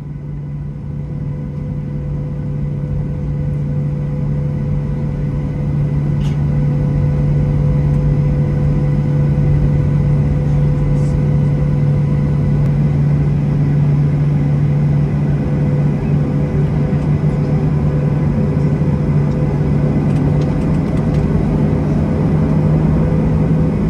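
Boeing 737-900's CFM56 jet engines running at taxi power, heard inside the cabin over the wing: a steady drone with a constant low hum, growing a little louder over the first several seconds and then holding level.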